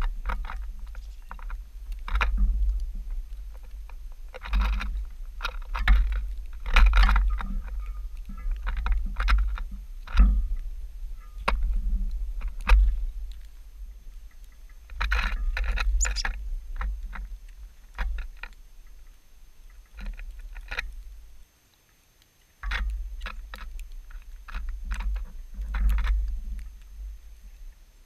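Irregular clicks and taps from small birds landing, hopping and pecking at seed on a wooden tray feeder, heard close up, with low thuds and rumbles coming and going among them.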